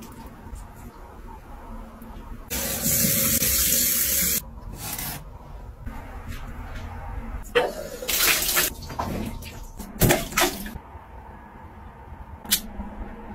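Water running from a bathroom tap into a sink: a steady hiss for about two seconds, starting about two and a half seconds in. Several shorter bursts of splashing follow later.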